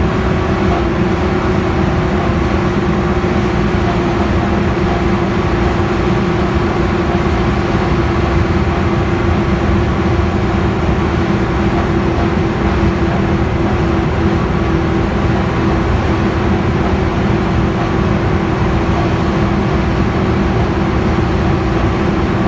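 Scania K280UB bus's nine-litre five-cylinder diesel engine running steadily at cruising speed, heard inside the passenger cabin along with steady road noise. The engine note holds one constant pitch, with no revving or gear changes.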